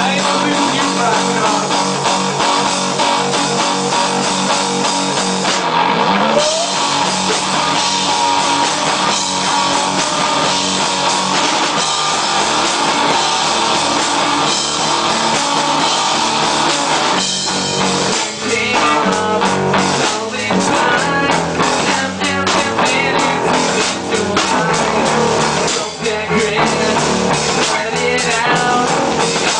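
Loud rock music with guitar and drum kit, playing continuously.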